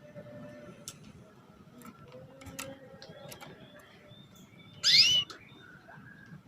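Female domestic canary giving one short, loud, rising "cuit" call about five seconds in, the contact call a hen uses to draw a male into song. Faint scattered clicks sound around it.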